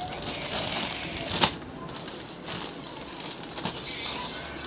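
Plastic courier mailer bag rustling and crinkling as it is handled and turned over, with one sharp click about a second and a half in.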